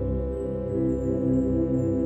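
Background music: a slow instrumental with long held notes.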